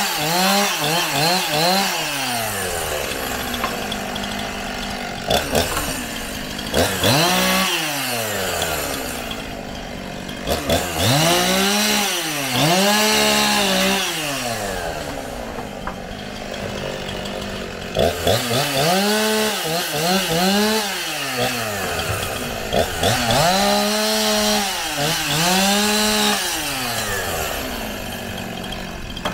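Two-stroke chainsaw cutting wooden planks into firewood, its engine revving up and falling back again and again, with steadier running between the revs.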